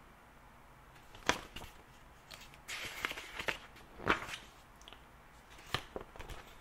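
Paper book pages being handled and turned: faint rustling around the middle, with a few short sharp clicks from the pages and cover.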